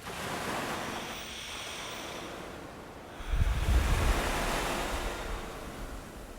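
Ocean waves washing on a shore: a steady wash of surf, with one wave surging in about three seconds in with a deep rumble, then easing off.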